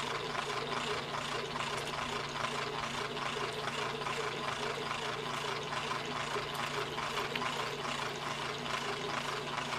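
Electric drill running steadily at constant speed, with a fast, even ticking over its motor hum.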